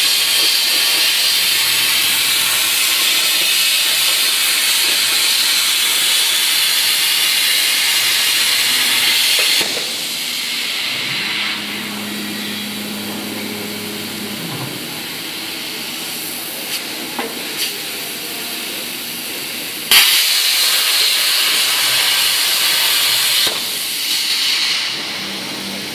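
CNC plasma cutter's arc hissing steadily as it cuts steel plate, then cutting off about ten seconds in, leaving a quieter machine hum. About twenty seconds in the arc strikes again with a sharp crack and hisses for three or four seconds before stopping.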